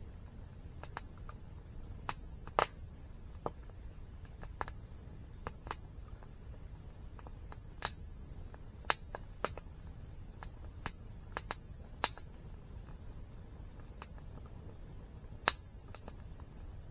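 Wood fire crackling: irregular sharp pops and snaps, with a few loud ones standing out, over a steady low rumble.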